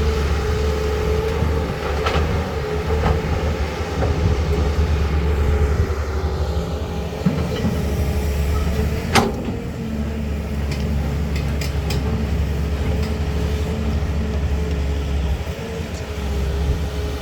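Caterpillar 320 hydraulic excavator's diesel engine running steadily, with a steady whine over it and a few sharp knocks, the loudest about nine seconds in, then several small clicks.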